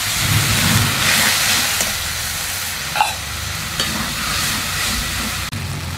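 Water poured into hot masala frying in mustard oil in an aluminium kadai sizzles, hardest in the first two seconds, while a metal spatula stirs and scrapes the spices, with a couple of sharp clicks about three seconds in.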